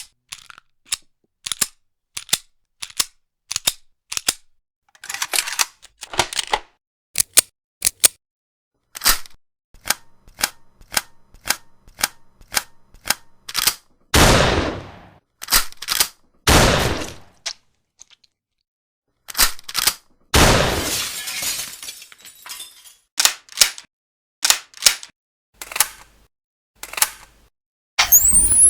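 A series of gun reloading sounds: many sharp metallic clicks and clacks of magazines, slides and bolts, some in quick pairs, broken up by a few longer sliding rasps. A quick rising whistle comes in near the end.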